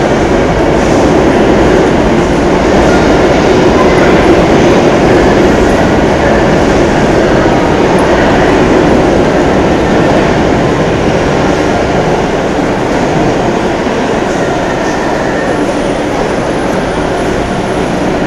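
A steady, loud rumbling din of city noise with no distinct knocks or voices standing out. It swells a little a few seconds in and eases slightly toward the end.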